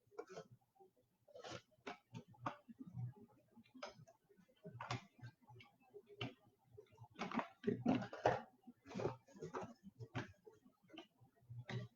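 Trading cards being handled at a table: irregular soft clicks and short slides of card stock, busiest about two-thirds of the way through.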